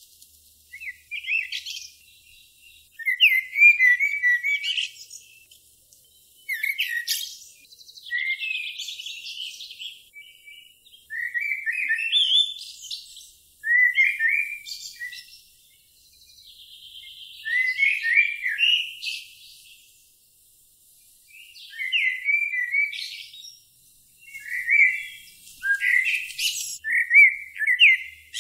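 A songbird singing short, quick chirping and whistled phrases, one every two to three seconds, with brief pauses between them.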